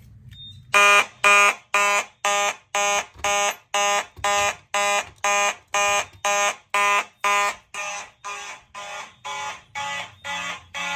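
Simplex 4903 fire alarm horns sounding in alarm: a loud, buzzy horn tone pulsing on and off about twice a second, starting just under a second in. In the second half the pulses of the horns slip slightly out of step and overlap.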